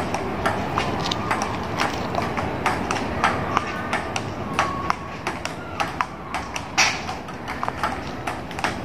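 Table tennis rally: the plastic ball clicking off the paddles and the table in a quick, uneven run of sharp clicks, a few a second, over steady background noise.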